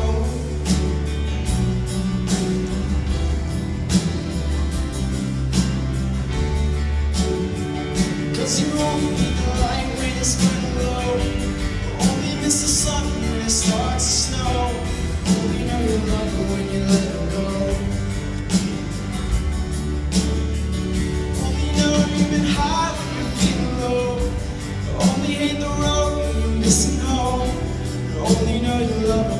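Live band performance with a male lead singer, backed by a steady drum beat and bass, heard from the audience in a large hall.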